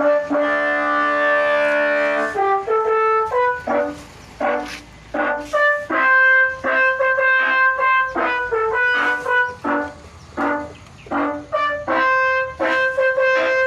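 Bus telolet horn, a set of switched air horns, playing a pop-song melody. It opens with a chord of several horns held for about two seconds, then runs on as short honked notes with a few longer held ones.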